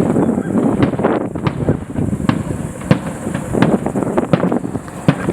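Fireworks display: a run of sharp bangs and crackles, a couple a second, over a continuous low rumble.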